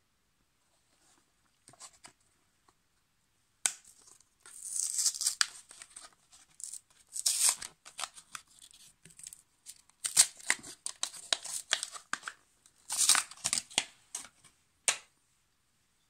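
A card-backed blister pack being torn open by hand, its printed card backing ripping in a series of irregular tears and crackles that get louder and come thick and fast from about four seconds in.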